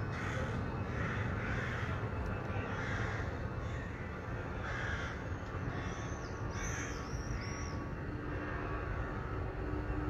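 Crows cawing repeatedly, harsh calls a second or so apart, over a steady low outdoor rumble. A few quick high chirps from a smaller bird come about two-thirds of the way through.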